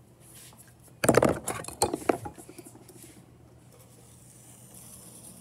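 A burst of clattering as hand tools and a steel ruler are handled on a work table about a second in, followed by a quieter scraping as a potter's knife is drawn along the ruler to cut the clay slab.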